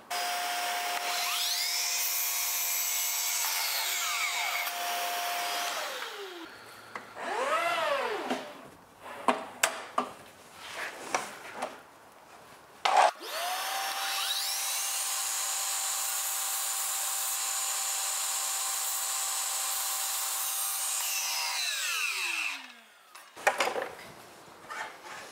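Makita sliding miter saw cutting a piece of window-trim header cap to length. The motor whines up to speed, runs steadily for about six seconds and winds down. After a brief blip of the trigger and a few clicks, it starts again about halfway through, runs for roughly nine seconds and winds down near the end.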